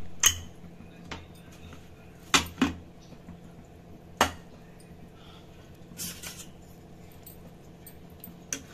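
Metal clinks and knocks from an Ideal aluminium pressure cooker being opened after cooking: the whistle weight is lifted off and the lid handled. Half a dozen sharp knocks come spread out with quiet between, and a short scraping rasp about six seconds in.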